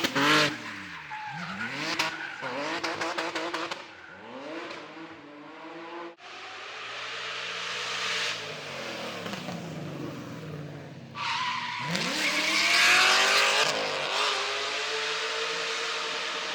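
Drift cars at full throttle: engines revving up and dropping again over and over while the rear tyres squeal and skid, with abrupt changes about six and twelve seconds in.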